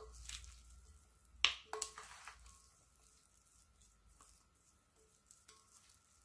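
Wooden spatula mixing seasoned pollock roe in a glass bowl: soft stirring with a few sharp clicks of the spatula against the glass. The two loudest clicks come close together about a second and a half in, each with a brief ring.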